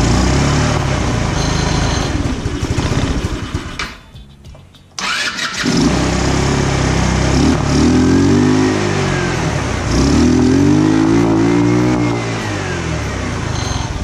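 150cc GY6 four-stroke single-cylinder scooter engine running rough, unable to hold consistent revs. It drops away for about a second, then runs again and is revved twice, each rev rising and falling. The uneven running is the won't-idle fault that a replacement CDI has not cured.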